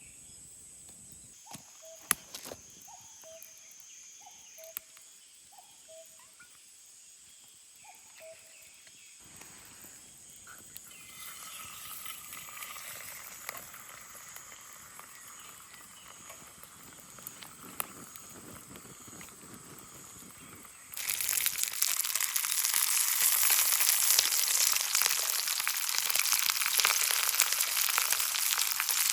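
A short call repeats at a steady pace over quiet evening ambience for several seconds. About two-thirds of the way in, a loud, steady sizzle starts suddenly as food hits a hot cooking surface.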